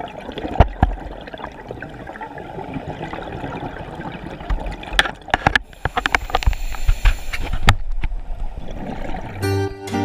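Scuba diver's breathing heard underwater through the camera housing: a muffled gurgle and crackle of exhaled bubbles from the regulator, with denser clusters of bubble crackle about halfway through. Music comes in near the end.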